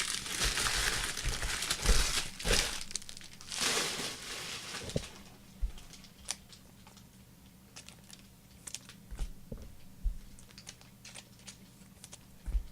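Crinkling and tearing of a trading-card pack's wrapper for about the first five seconds, then scattered light clicks of cards being handled.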